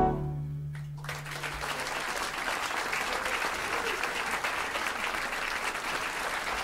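The big band's last held note dies away, and about a second in the audience breaks into applause that carries on steadily.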